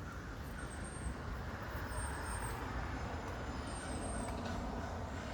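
Steady rumble of passing road traffic, swelling slightly toward the end, with faint high chirps recurring now and then.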